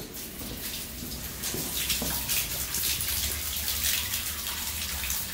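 Water pouring from a wall-mounted tap spout into a baptismal pool, a steady splashing run of water that grows a little louder about a second and a half in.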